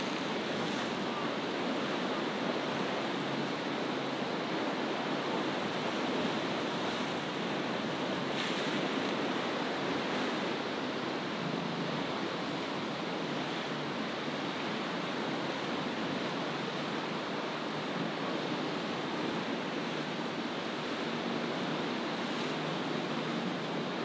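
Steady rushing noise of wind and choppy, breaking waves on a rough sea, with a faint low hum coming and going in places.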